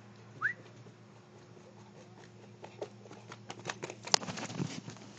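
Close scuffling and sharp clicks that grow busier from about halfway, as a Newfoundland puppy moves right up against the camera. A short rising chirp comes near the start.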